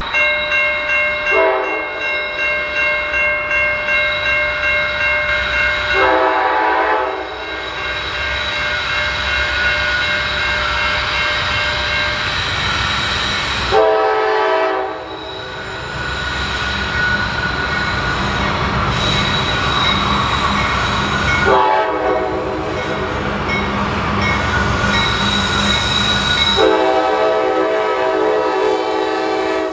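Norfolk Southern freight train approaching and passing, its locomotive horn sounding in several separate blasts over the steady rumble of the train.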